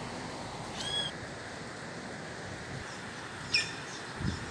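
A woodpecker calling: one short call about a second in and a sharper call near the end, over steady wind noise. A low thump follows the second call.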